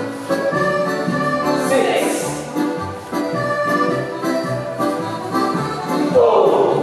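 Accordion-led Scottish country dance music playing a jig with a steady beat. Two brief noisy sounds rise above it, about two seconds in and a little after six seconds.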